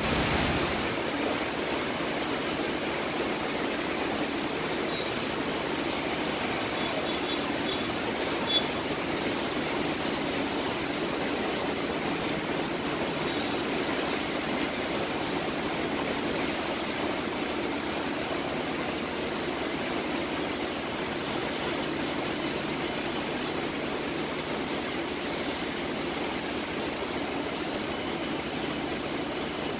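Heavy rain pouring down steadily as a dense, even hiss. One sharp tap about eight and a half seconds in.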